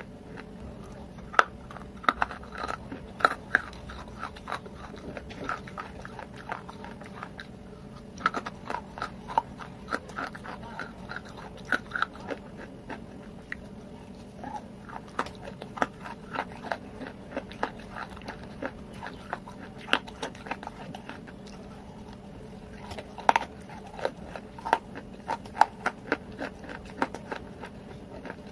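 Close-miked crunching and chewing of clay mixed into a wet, creamy paste, with multani mitti (fuller's earth) among the clay. The crunches come as bursts of sharp, crackly bites with short pauses between mouthfuls.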